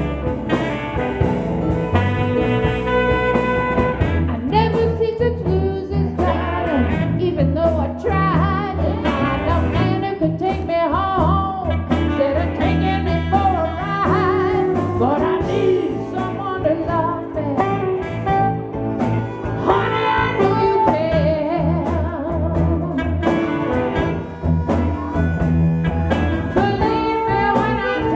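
Live band playing a blues song with a lead vocal over bass and other instruments.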